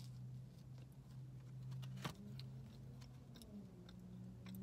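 Low steady hum of a car idling, heard from inside the cabin, with faint ticks and one sharp click about two seconds in, over quiet chewing.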